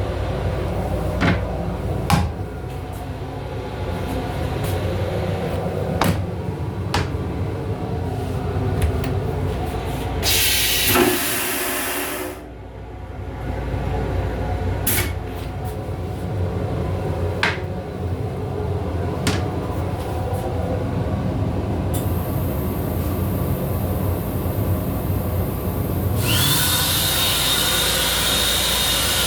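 Metro-North M8 railcar running, heard inside its restroom as a steady rumble with scattered clicks and rattles. A brief hiss comes about ten seconds in, and a longer hiss with a steady high tone starts a few seconds before the end.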